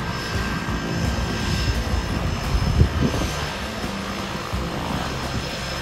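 Harbour Air de Havilland Canada Otter floatplane taxiing on the water, its single turboprop engine and propeller running steadily, with a thin high whine over a low drone.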